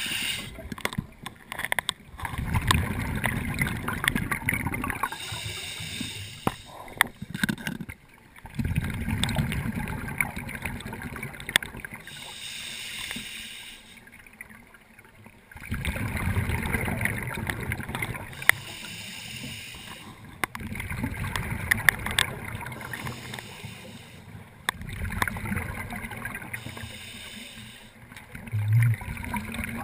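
Scuba diver's regulator breathing heard underwater: a low rumble of exhaled bubbles alternating every few seconds with the higher hiss of an inhalation, over several breaths.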